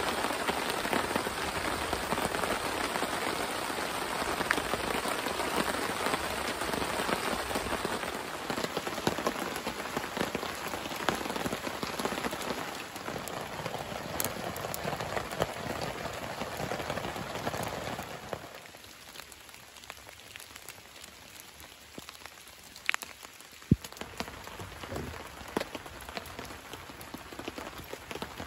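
Steady rain falling on a tarp canopy overhead. It drops to a quieter, lighter rain sound about two-thirds of the way through, and a few sharp ticks follow.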